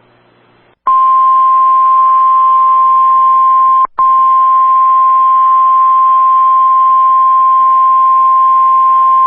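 Weather-radio warning alarm tone: a single loud, steady tone that starts about a second in, cuts out for an instant near four seconds, then carries on. It is the alert that comes before a broadcast severe thunderstorm warning.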